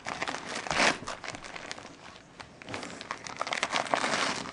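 Wrapping paper crinkling and rustling in irregular bursts as a Siberian husky noses and paws at a wrapped present, louder about a second in and again in the latter half.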